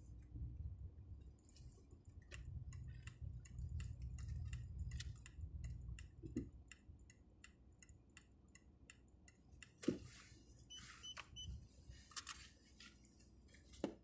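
Low rumble of a car moving slowly, heard inside the cabin, fading after about six seconds as it comes to a stop. Many small clicks and ticks throughout, with a sharper knock about ten seconds in.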